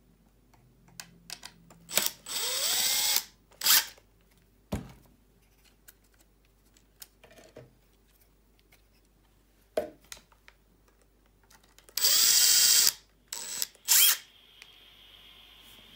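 Small handheld electric screwdriver motor whirring in short runs, the pitch rising as it spins up, with brief blips and a few handling knocks: screws being driven out of a server power supply's handle and bracket.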